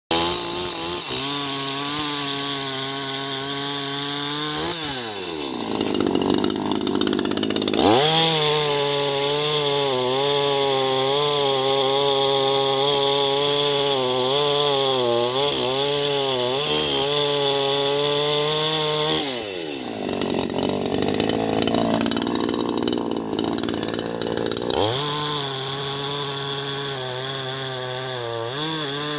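Two-stroke chainsaw running at high revs while cutting through a log, its pitch wavering under load. Twice it gives way to a harsher, rougher noise for a few seconds.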